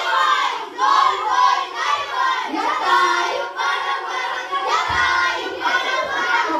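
A group of children singing together, many high voices overlapping.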